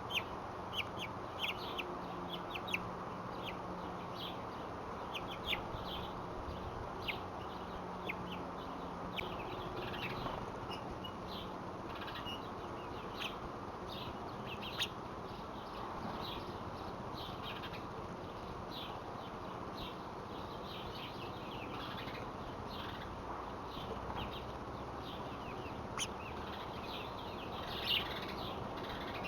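Small birds chirping in short, scattered calls over a steady background hiss, with a low steady hum for about the first nine seconds.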